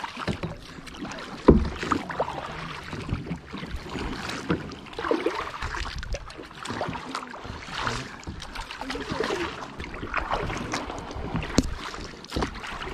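Kayak paddles dipping and splashing in river water in irregular strokes, with a sharp knock about a second and a half in.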